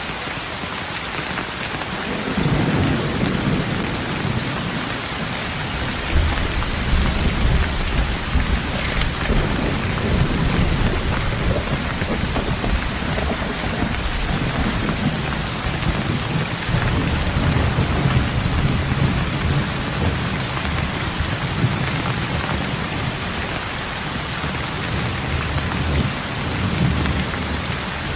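Steady rain falling on a road, with low rolling thunder that starts about two seconds in and swells and fades several times.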